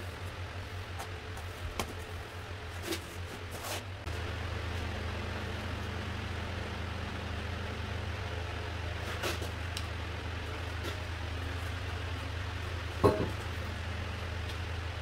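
Light clicks and taps of a steel plate being handled and set against a steel stand, with one louder knock near the end, over a steady low hum.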